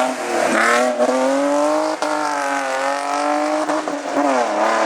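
Race car engine running hard under acceleration: its pitch climbs and drops sharply at a gear change about a second in, holds high and slowly rising for a few seconds, then drops again near the end as it shifts or lifts off.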